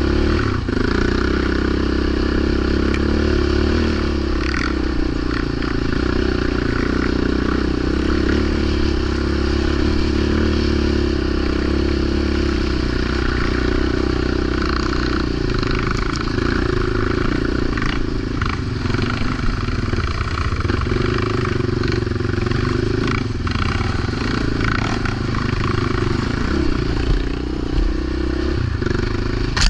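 Yamaha Raptor 700 quad ATV's single-cylinder four-stroke engine running steadily under way, with scattered clattering knocks.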